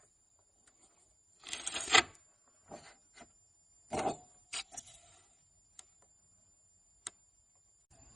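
Tools and parts being handled in a car's engine bay: scattered clicks and knocks, with short rattling clatters about one and a half to two seconds in and again about four seconds in, the loudest near two seconds.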